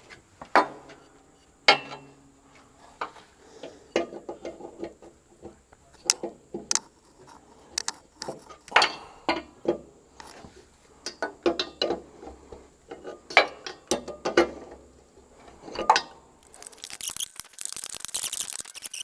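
Hand tools working on the air-line fittings: irregular metal clicks and clanks, then a quick run of rapid ratchet-wrench clicking near the end.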